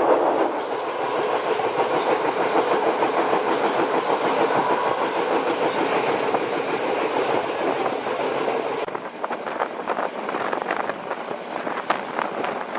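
Sri Lankan passenger train running along the track: the steady noise of the carriages and wheels on the rails, dropping somewhat in level about nine seconds in, with some sharper clicks after that.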